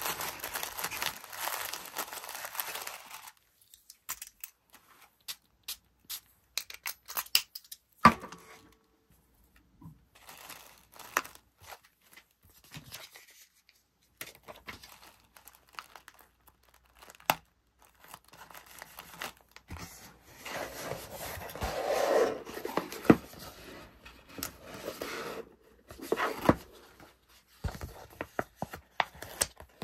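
Tissue paper and sticker paper rustling and crinkling as an order box is packed and stickers are pressed on and handled, with scattered light taps and clicks. There is a stretch of rustling at the start lasting about three seconds, a sharp tap about eight seconds in, and a longer, louder stretch of rustling from about twenty to twenty-five seconds in.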